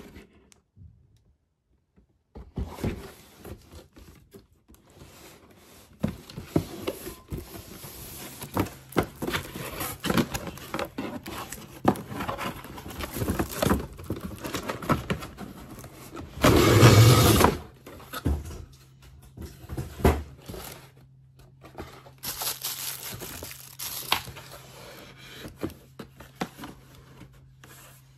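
Handling of a toy's cardboard box and plastic packaging: irregular scraping, crinkling and knocks as it is opened, with one louder burst about a second long two-thirds of the way through.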